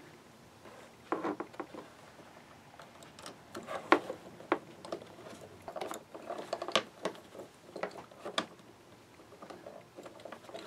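Irregular clicks and light knocks of a hand ratchet and socket extension working the bracket bolts on a plastic car door panel.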